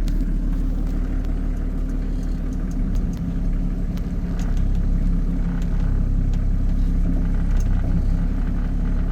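A motor vehicle driving at steady speed: constant engine hum and road rumble, with a few light clicks and rattles.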